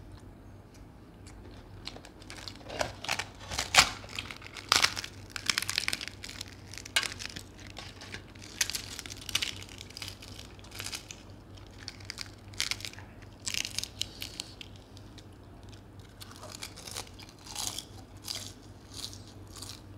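A man chewing and biting into deep-fried puri with chicken curry, with the sound of the puri being torn by hand, in irregular bursts that are loudest about four seconds in.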